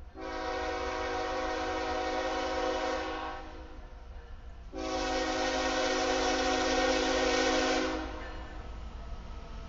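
Air horn of an approaching GE ES44AC freight locomotive sounding two long blasts of about three seconds each, a second and a half apart, the opening of a grade-crossing signal. A low rumble runs underneath.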